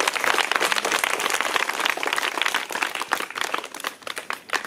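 A crowd of schoolchildren clapping. The applause is dense at first and thins to scattered claps near the end.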